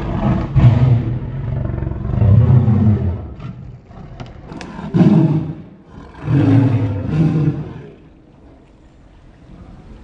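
Siberian tiger giving a series of loud, low roaring calls, each about a second long, that stop about eight seconds in.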